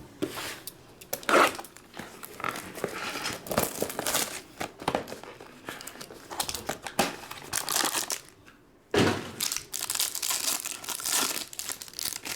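Plastic wrapping crinkling and being torn off as a sealed trading-card box is opened, in irregular rustling bursts with a short pause about two-thirds of the way through.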